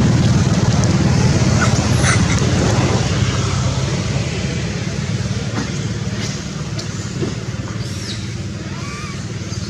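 Motor vehicle engine running close by, a steady low drone that slowly fades. A few faint, short high-pitched chirps come over it about two seconds in and again near the end.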